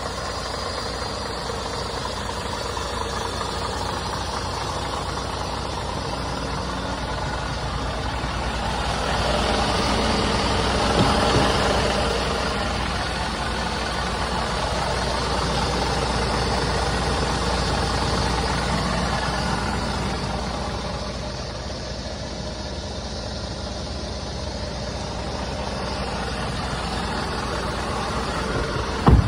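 Scania S500 Euro 6 truck's inline-six diesel engine idling steadily, swelling a little partway through. A single sharp knock comes near the end.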